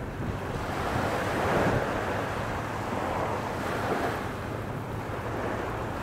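Small waves breaking and washing up a sand beach, the wash swelling loudest about a second and a half in, with wind rumbling on the microphone.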